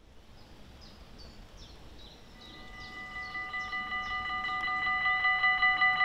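Dutch level-crossing warning bell starting up about two seconds in: a rapid, pulsing ringing tone that grows louder over the next few seconds. It is the crossing activating to warn of an approaching train.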